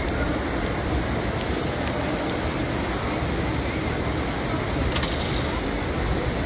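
Steady rain, an even hiss, with a brief patter of sharper ticks about five seconds in.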